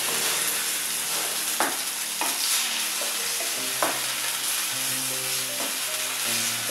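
Onions and red peppers sizzling in a frying pan as a wooden spatula stirs them, with a steady hiss of frying. The spatula knocks sharply against the pan three times, about one and a half, two and four seconds in.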